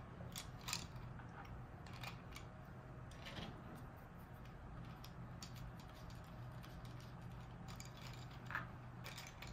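Faint, scattered clicks and taps of small 3D-printed plastic gears and tentacles being handled and pressed together into the jellyfish's tentacle assembly, over a low steady hum.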